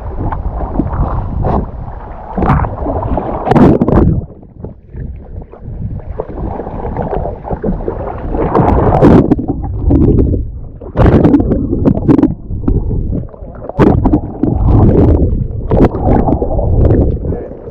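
Small boat at sea: loud, gusting rumble of wind and water noise on the microphone, swelling and dropping every second or two.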